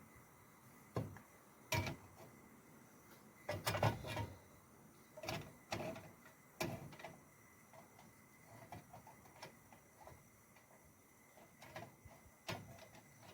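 Scattered knocks, clicks and clatters of camp cooking gear being handled, with a cluster of louder clatters about four seconds in.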